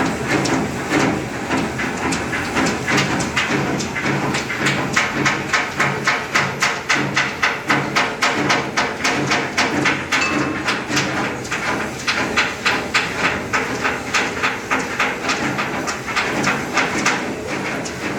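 Hammers striking steel in a repair workshop: a steady run of sharp metal blows, about two to three a second, over a constant background clatter.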